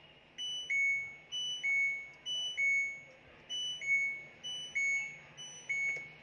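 A washing machine control board's buzzer beeping a repeating two-note pattern, a higher note then a lower one, six times at about one pair per second.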